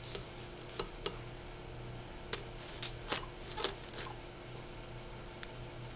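Metal fork clinking against a ceramic bowl as a toddler spears avocado cubes: scattered light clinks, several bunched together in the middle and a last one near the end.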